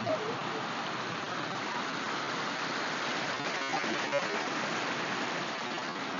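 Waterfall rushing in a strong rain-fed flow: a steady, even roar of falling water.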